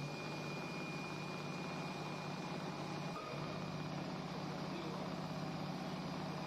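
Automatic CNC sewing machine running steadily, a constant mechanical hum with a rapid fine stitching texture and no pauses.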